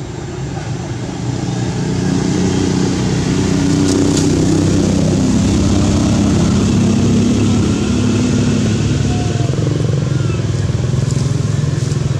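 A vehicle engine running steadily, growing louder over the first two seconds and then holding.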